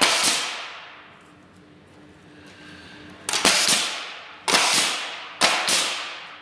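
Pneumatic coil nailer driving nails into wooden pallet boards: sharp shots, one right at the start and then, after a pause of about three seconds, five more in quick succession.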